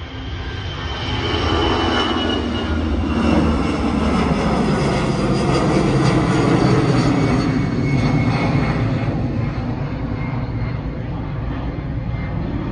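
Twin-engine jet airliner climbing out at takeoff power, its engine roar swelling as it passes and then slowly fading, with a high engine whine that slides down in pitch as it goes by.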